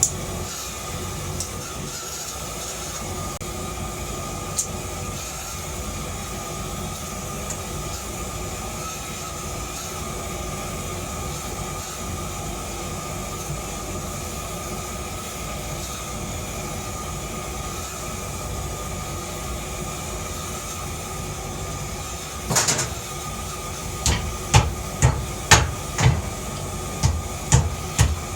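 A steady mechanical running noise with a faint whine, then, from a few seconds before the end, a hammer striking metal in a quick series of blows, about two a second.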